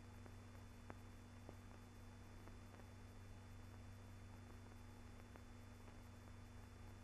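Near silence: a steady low hum and faint hiss, with a couple of faint clicks.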